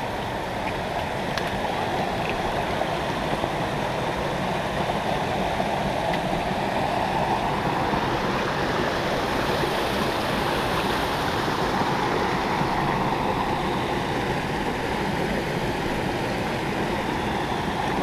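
Small forest stream running over rocks and low cascades: a steady rush of water that grows a little brighter around the middle.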